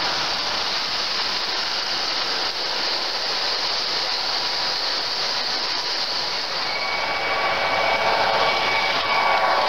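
Three-rail O gauge model trains running on the layout's track, a steady rushing rumble of wheels and motors. A thin steady whine joins in during the last few seconds.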